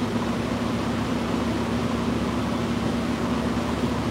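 A fan running steadily, a constant low hum under an even rushing of air.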